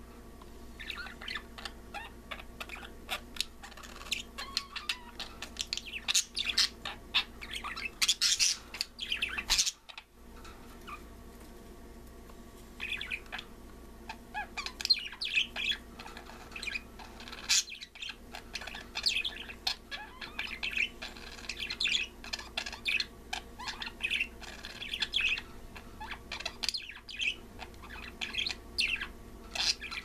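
Pet budgerigars chattering: a continuous run of short chirps and warbles, with a short break about ten seconds in.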